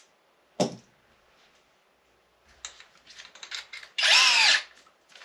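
Cordless drill triggered briefly near the end, its motor whining up and dropping back within about half a second, after a few handling clicks and rattles.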